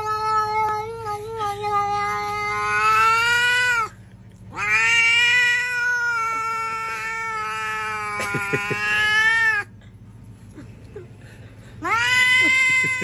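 A cat yowling in long drawn-out wails, each about four to five seconds with a short pause between; the first is already under way and the third starts near the end.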